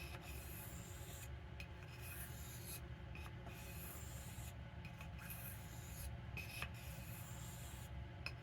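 Knife blade stroked lightly across an oiled soft Arkansas whetstone, a faint scraping hiss that comes in about six even strokes with short pauses between them.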